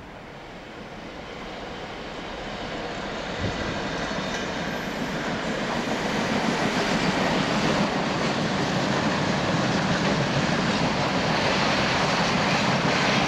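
Class 66 diesel freight locomotive, with its two-stroke V12 engine, approaching and crossing the level crossing. It grows louder over the first six seconds, and then the train's wagons roll past in a steady, loud rush of wheel and rail noise.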